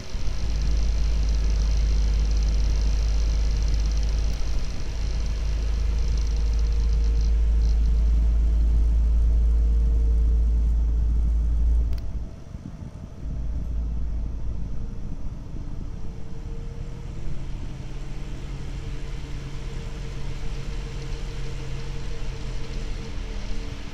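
Fans of an MSI GeForce GTX 770 Twin Frozr graphics card running with a loud horrible noise: a deep rumble under a steady hum that wavers slightly in pitch. The rumble drops off sharply about halfway through, then returns weaker. The owner fears a fault with the fans.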